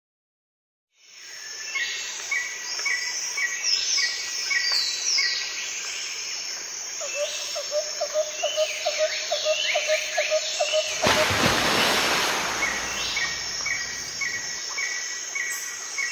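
Outdoor garden ambience fading in after a second of silence: birds calling with a regularly repeated short chirp and quick falling whistled notes over a steady high insect drone. About eleven seconds in there is a two-second rush of noise.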